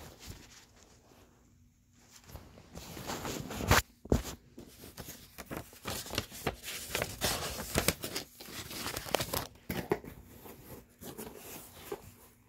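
Rustling and crinkling with many small clicks and knocks as things are rummaged through and handled, with a sharp knock just before the four-second mark; the first two seconds are fairly quiet.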